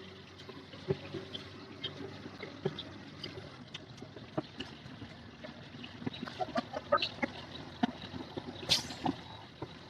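Mitsubishi Fuso truck cab on a road test: a low steady running noise with scattered light clicks and rattles, and a sharper knock near the end.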